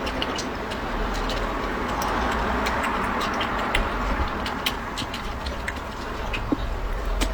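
Close-miked eating sounds: chewing, with many irregular sharp wet mouth clicks over a steady hiss.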